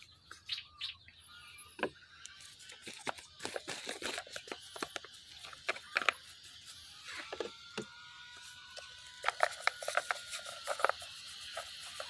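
Paintbrush dabbing and brushing wood finish into a carved wooden horse statue: irregular soft clicks and taps from the bristles working the carved wood. A faint steady high tone comes in about seven seconds in.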